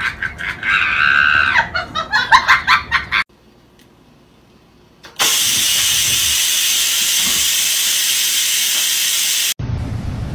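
Electric rice cooker venting steam: a loud, steady hiss that starts suddenly about five seconds in and cuts off about four seconds later. Before it, voices and laughter for about three seconds; after it, a low steady hum.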